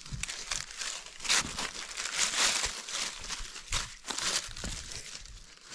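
Dry fallen leaves and loose stony ground crackling and rustling under scuffing footsteps and a hand digging tool, in irregular bursts.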